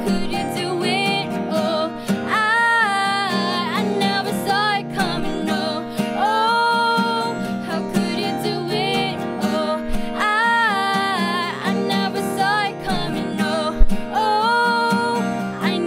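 Female vocals sung over two strummed acoustic guitars in an unplugged cover of a pop-rock song, with a brief low thump about fourteen seconds in.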